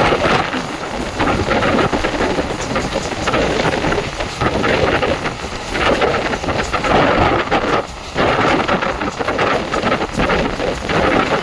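Running noise of an ICF passenger coach on the move, heard from inside: a loud, continuous rumble and rattle from the wheels and coach body, with a brief dip about eight seconds in.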